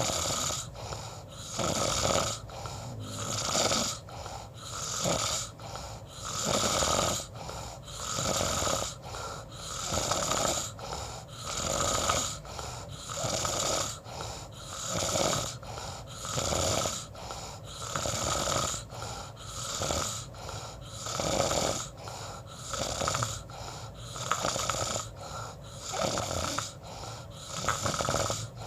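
Snoring, each rasping breath swelling and fading in an even rhythm about every second and a half.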